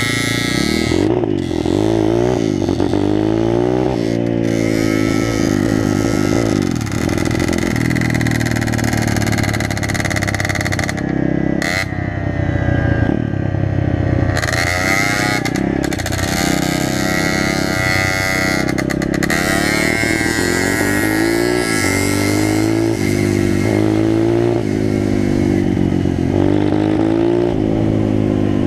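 Small dirt bike engine running under way, its revs climbing and dropping again and again as it accelerates and changes gear, with wind noise over it.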